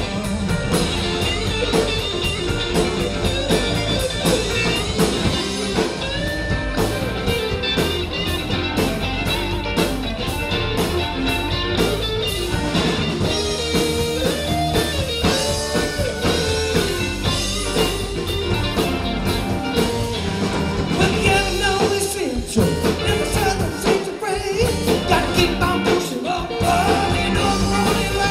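Live rock band playing a bluesy rock-and-roll number, with electric guitar, drum kit and a singer.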